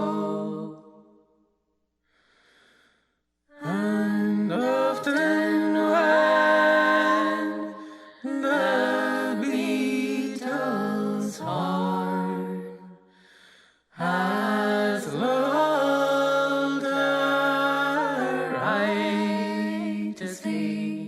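Unaccompanied solo singing in long, held phrases with gliding ornamented notes, broken by short silent pauses.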